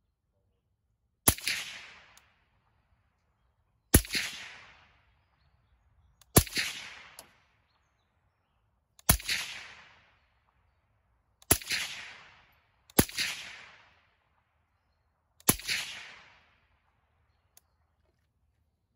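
Integrally suppressed 300 Blackout AR-15 firing seven single shots of steel-case supersonic ammunition, spaced about one and a half to three seconds apart. Each shot is a sharp report with an echo trailing off over about a second, and a faint click follows near the end.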